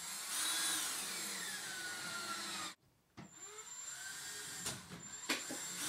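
Cordless drill driving a wood screw through plywood into a wooden frame: the motor's whine falls steadily in pitch as the screw pulls down, then cuts off suddenly. After a short break the drill runs again, quieter, with a few sharp clicks.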